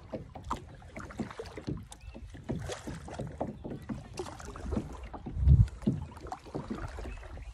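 Kayak being paddled on a lake: a double-bladed paddle dipping and splashing in uneven strokes, water sloshing against the hull. A brief low rumble about five and a half seconds in is the loudest moment.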